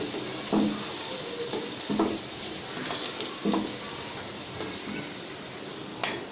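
Hot oil sizzling in a kadhai as fried potato pieces are lifted out with a metal spatula, which knocks against the pan four times, roughly every one and a half seconds, the sharpest near the end.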